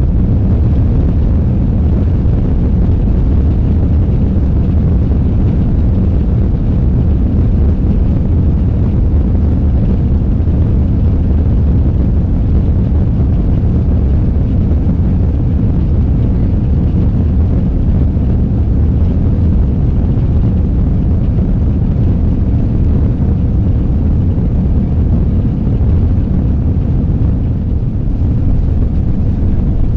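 Airbus A340 taking off, heard from inside the economy cabin: the four engines at takeoff power and the rush of the airframe make a loud, steady low rumble that holds level.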